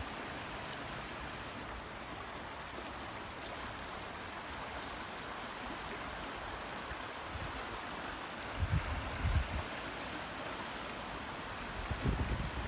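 Shallow stream rushing steadily over rocks in small rapids. Brief low rumbles on the microphone come twice, about nine seconds in and near the end.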